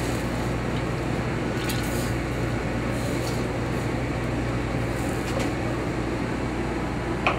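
Steady rush and low hum of a commercial kitchen, with lit gas burners and a fan running, and a few faint ticks over it.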